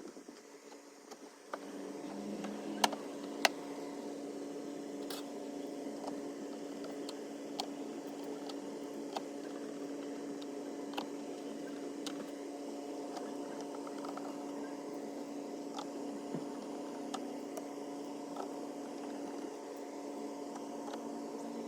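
Steady mechanical hum that starts about a second and a half in, with scattered clicks and two sharp knocks about three seconds in, as parts of a swamp cooler are handled and fitted during reassembly.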